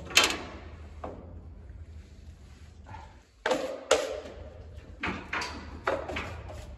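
Drywall finishing tools clacking and scraping as joint compound is worked onto a wall: a string of sharp clacks with short scraping tails, bunched near the start, just before the middle and near the end, over a low steady hum.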